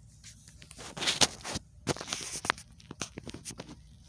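Bursts of rustling and scraping, loudest about a second in, followed by several sharp clicks.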